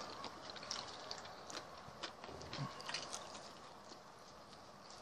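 Faint, scattered small clicks and wet mouth sounds of people chewing food.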